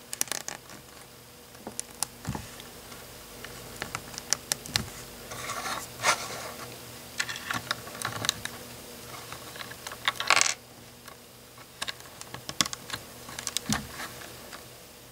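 Plastic LEGO bricks clicking and knocking as they are handled and snapped together by hand: an irregular scatter of small sharp clicks, a few of them louder snaps.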